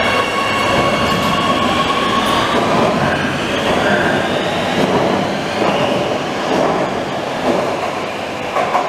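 Oslo Metro MX3000 train pulling out of an underground station and passing close by. Its traction motors whine, rising in pitch as it accelerates, while its wheels clatter over the rail joints. The sound gets a little quieter near the end as the train leaves.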